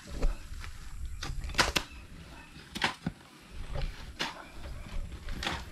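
Digging tools chopping into soil, about six sharp, irregular knocks over a low rumble.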